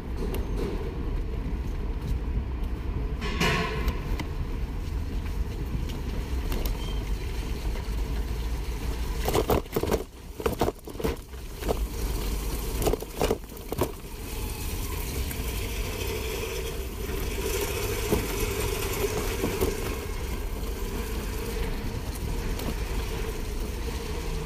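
E-bike riding over a rough, rutted dirt road: a steady rumble of tyres and rattling bike, with a run of sharp knocks and jolts about halfway through as it crosses muddy ruts.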